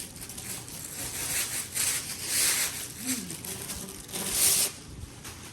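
Packaging being handled and pulled open, rustling and tearing in several bursts, the loudest about two and a half and four and a half seconds in.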